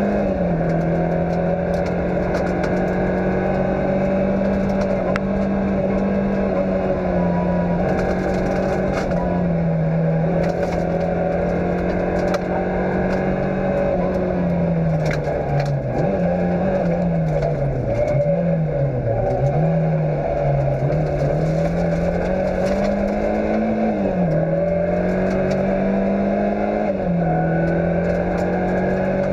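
Fiat Cinquecento rally car's engine heard from inside the car, running at steady speed with a few drops in pitch at gear changes and rising and falling revs in the middle, with loose stones clicking against the car.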